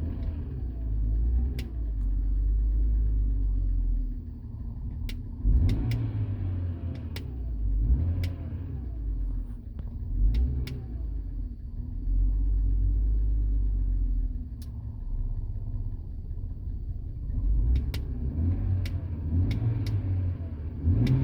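BMW E90 325xi's N52 straight-six idling rough and uneven, the rumble swelling and sagging, with a few sharp clicks over it. The engine is misfiring and hesitating; the codes read from it are cylinder 1 and cylinder 2 misfires.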